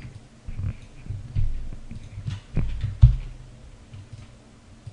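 Dull low thumps and a few faint clicks from keyboard and mouse use during a copy and paste, carried to the microphone through the desk. The loudest thump comes about three seconds in.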